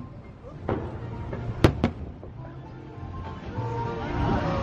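Aerial fireworks bursting: three sharp bangs, the loudest about a second and a half in, with a second right after it, over music playing.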